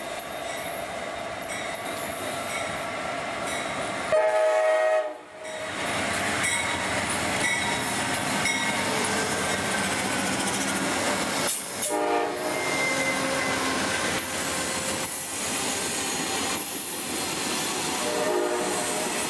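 Amtrak passenger train arriving and rolling past, with steady wheel and engine noise. Its horn sounds one loud chord for about a second about four seconds in, a shorter blast a little after the middle, and another near the end.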